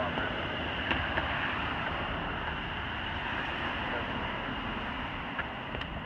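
Steady road and tyre noise from cars driving past on the street, with a small click about a second in and another near the end.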